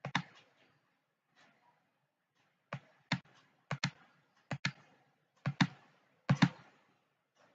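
Sharp clicks from a computer mouse and keyboard: one at the start, then, from about three seconds in, about five pairs of clicks roughly a second apart.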